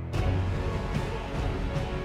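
Background music: a soft held passage gives way, just after the start, to a fuller, louder section with a steady beat.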